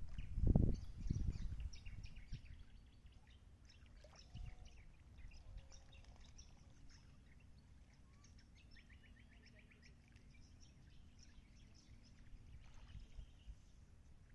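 Calm seaside outdoor ambience: wind buffeting the microphone with a low rumble in the first two seconds, then birds chirping and calling throughout, including a quick trill of repeated notes around the middle. A faint steady hum sits under it in the second half.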